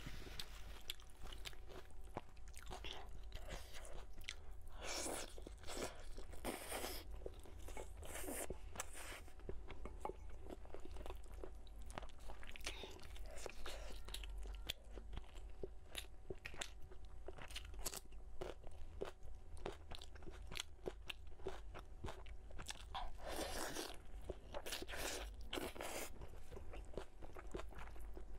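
Close-miked eating sounds: chewing and biting into pork knuckle, with crunching and the tearing of meat by a gloved hand. There are dense small clicks throughout, with longer, louder stretches about five seconds in and again near the end.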